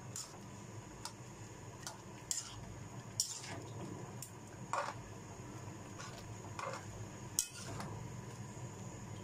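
Metal ladle clinking and scraping against a wok while stirring a simmering coconut-milk fish stew, in scattered single knocks, over a low steady hum.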